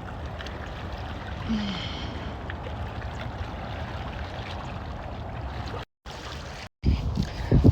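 Steady rush of flowing water. The sound drops out twice briefly about six seconds in, then a run of low thumps starts near the end.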